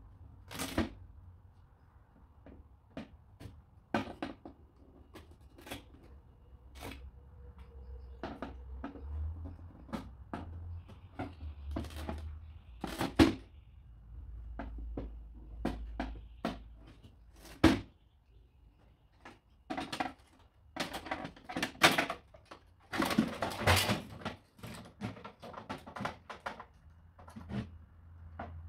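Irregular clicks, taps and clatter of plastic and metal photocopier parts being handled and taken apart with hand tools, with a denser run of rattling late on, over a low background rumble.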